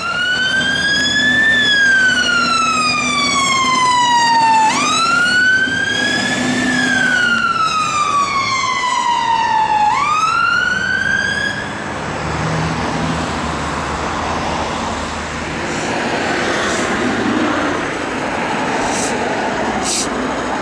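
Fire engine siren on a slow wail, sweeping up and falling back down about every five seconds, twice over, then cutting off about twelve seconds in. After that, vehicle engine and road noise with a few short clicks.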